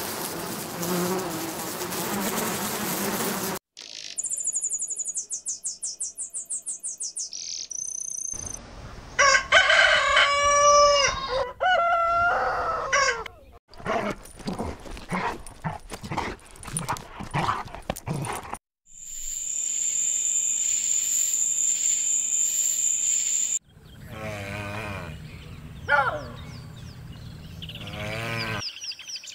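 Animal and bird calls in a string of about six short clips cut one after another, each with a different call: repeated high chirps, long pitched calls falling in pitch, and a steady high tone with a pulsing beat.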